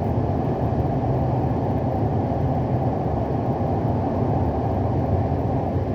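Steady rumble of road and engine noise inside a moving vehicle's cabin.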